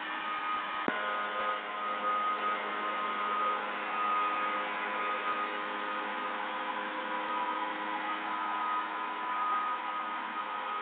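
Small engine of a motorized crop sprayer running steadily, its note even, with a single click about a second in.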